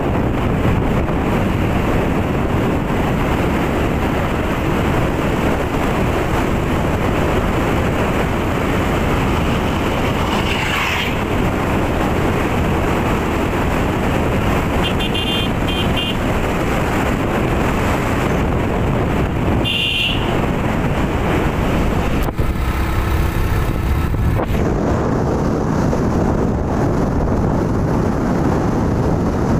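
Motorcycle riding at road speed: its engine and the wind blend into a steady rush. Short horn beeps come about halfway through and again about two-thirds of the way in.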